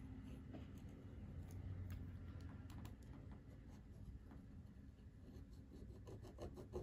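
Faint scratching of a pen tracing round a glass on card, with a few light clicks near the end.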